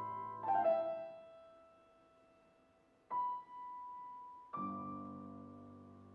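Sparse solo piano: a chord struck about half a second in, a single high note about three seconds in, and a fuller chord with low bass notes near the end, each left to ring and fade.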